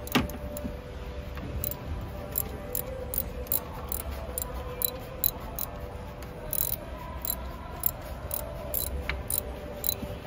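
Socket ratchet clicking in short, repeated ticks as it is worked back and forth, loosening a spark plug through a plug socket, universal joint and extension. There is one sharper metallic click just at the start.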